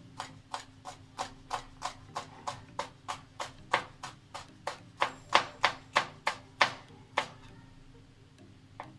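Kitchen knife chopping green chillies on a plastic cutting board: steady, even strokes about three a second, loudest a little past halfway. The chopping stops about seven seconds in, with one more knock near the end.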